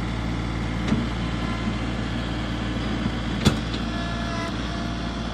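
A steady engine-like hum, as of a motor idling, with a couple of short sharp knocks, the loudest about three and a half seconds in.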